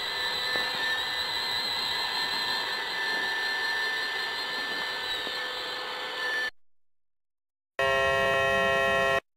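Robot vacuum cleaner running, a steady whirring hum with a thin whine over it, which cuts off suddenly about six and a half seconds in. After a second of silence, a held chord of steady tones sounds for about a second and a half.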